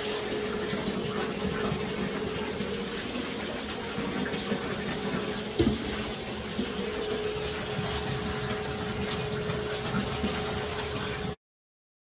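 Bath tap running steadily into a tub, with a single knock about halfway through; the sound cuts off abruptly near the end.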